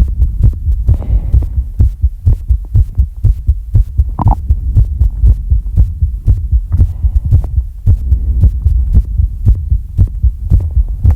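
Heavy, rapid breathing right on the microphone: each breath hits it as a low thump, several a second, irregular. There is a short voiced sound about four seconds in.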